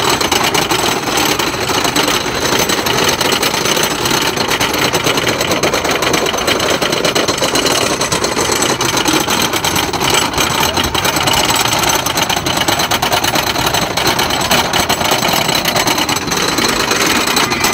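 Wooden roller coaster train climbing the lift hill: the lift chain and anti-rollback dogs clacking rapidly and steadily.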